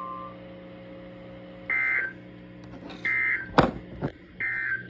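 NOAA Weather Radio SAME (Specific Area Message Encoding) end-of-message data bursts: three short, buzzy digital chirps about a second and a half apart, closing a severe thunderstorm warning. A sharp click falls between the second and third burst, over a steady hum from the radio.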